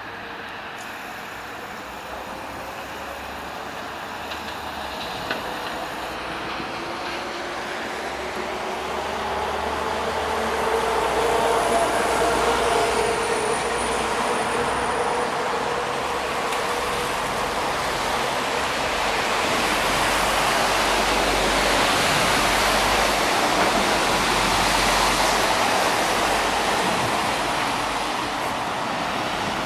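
Inside a VMZ-6215 articulated trolleybus pulling away: the electric traction drive's whine climbs in pitch over the first dozen seconds. Rolling and road noise grows louder, then holds steady.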